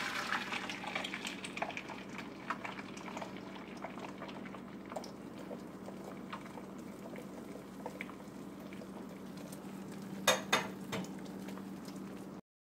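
Beaten eggs poured into hot fat in a steel frying pan, sizzling loudly at first and then settling into a steady sizzle with small crackles. A couple of sharp clicks come near the end.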